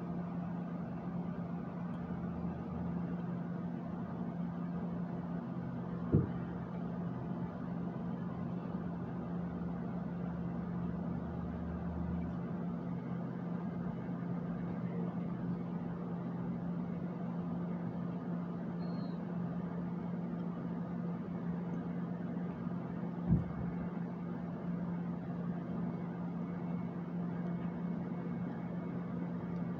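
Steady low mechanical hum from equipment in the room, with a deeper rumble under it that stops about twelve seconds in. Two sharp knocks break through, one about six seconds in and another near twenty-three seconds.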